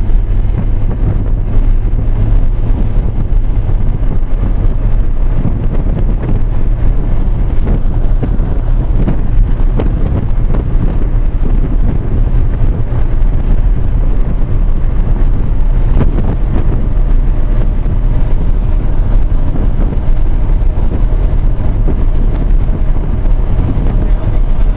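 Steady low rumble of a moving car, road and engine drone, with wind buffeting the microphone.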